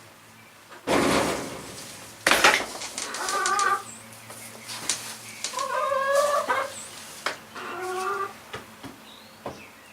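Chickens in a coop calling, with three drawn-out calls around three, six and eight seconds. A loud rush of noise comes about a second in, and another sharp one just after two seconds.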